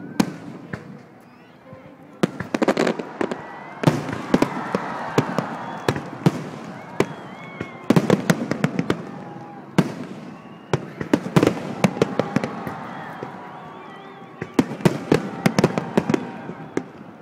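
A fireworks display: shells bang and crackle in rapid volleys, in several bursts about a second or two apart, with brief lulls between them.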